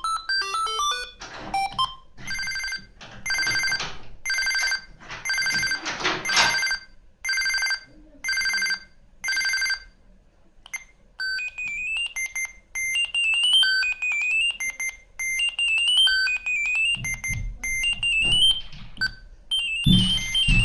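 Siemens M65 mobile phone's loudspeaker playing built-in ringtones: a short falling run of electronic notes, then a repeating high electronic ring beep about one and a half times a second for some eight seconds, then a quick chirping melody of short high notes.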